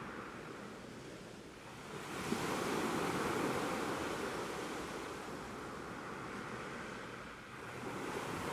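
Sea waves breaking and washing on a beach: a steady surf rush that swells as a wave comes in about two seconds in, eases off, and builds again near the end.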